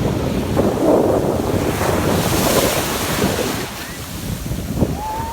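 Atlantic Ocean surf breaking on a beach, with strong wind buffeting the microphone; the wash of a wave swells about two seconds in.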